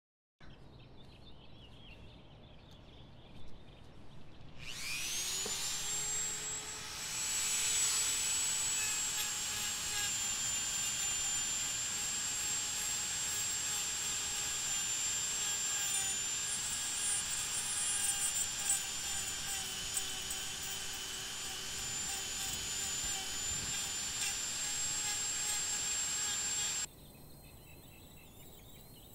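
Handheld rotary tool spinning up with a rising whine about five seconds in, then holding a steady high-pitched whine as its bit grinds into the decayed deadwood of a beech trunk. It stops abruptly near the end.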